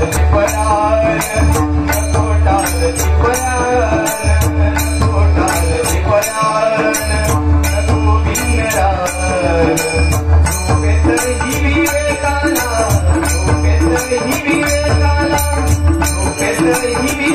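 Live Marathi bhajan: a man singing over pakhawaj and tabla drums, with jhanj hand cymbals clashing in a steady, even beat. The deep drum strokes pause briefly about six seconds in.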